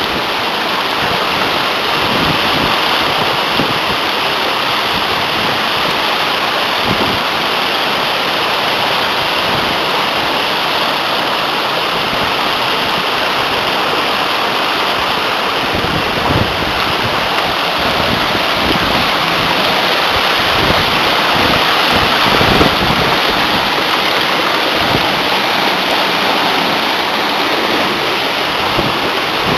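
Waterfall: loud, steady rush of falling water.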